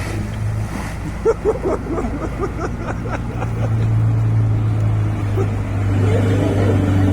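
Suzuki Samurai's engine running steadily, getting louder about three and a half seconds in.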